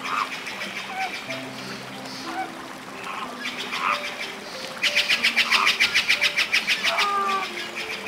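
Flock of flamingos calling with short nasal honks, then a fast run of about ten pulsing calls a second lasting about two seconds, over soft background music.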